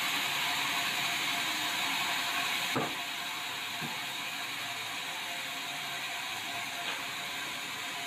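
Band sawmill blade running and sawing through a large meranti timber, a steady high hiss. About three seconds in there is a sharp knock, after which the saw runs a little quieter, with a couple of faint clicks later.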